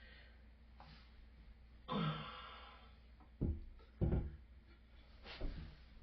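A sigh about two seconds in, then three or four short, dull knocks as toilet tank parts are handled during a flapper valve replacement.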